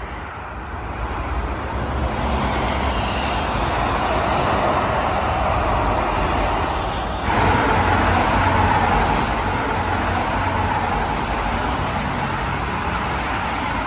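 Steady rush of motorway traffic, mostly tyre noise from many cars, loud and continuous, jumping louder about seven seconds in.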